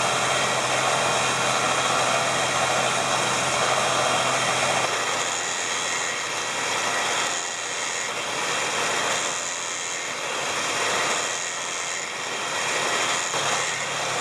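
Smittybilt electric winch motor running steadily as it spools in cable under power, with no clicking from the solenoid: the winch engages cleanly now that the solenoid has an added ground. The low hum under it drops away about five seconds in.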